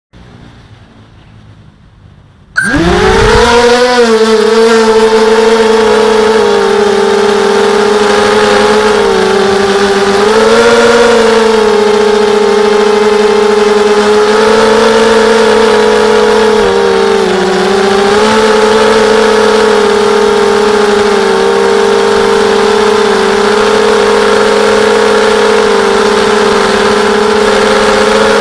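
Mini 260-size FPV quadcopter's four DYS 1806 2300KV brushless motors driving Gemfan 5030 propellers, heard from the camera on the quad: quiet for about the first two and a half seconds, then the motors spin up suddenly into a loud, steady whine. The pitch holds with small rises and dips as the quad flies.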